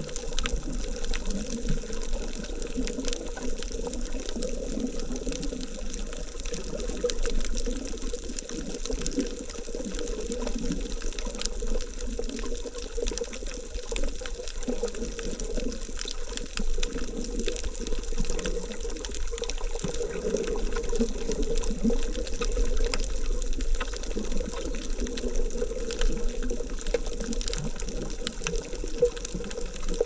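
Underwater ambience picked up by a GoPro camera's microphone: a steady, muffled rush of moving water with many faint clicks scattered through it.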